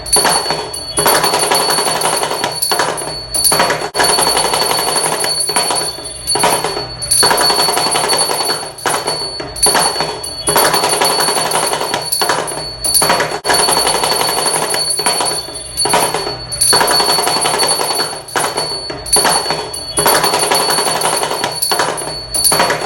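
Damru, the small two-headed hourglass drum, shaken in fast rattling rolls, phrases of one to two seconds broken by short gaps, under a steady high ringing tone.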